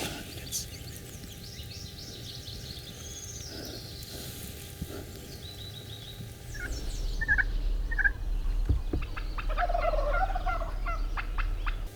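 Wild turkey gobbling from close by, coming in a little over halfway through as a loud, fast run of notes; faint songbird chirps before it.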